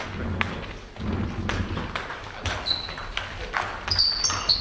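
A table tennis ball clicking sharply off the bats and table in a doubles rally, in an irregular run of quick hits. Near the end there are short high squeaks from players' shoes on the hall floor.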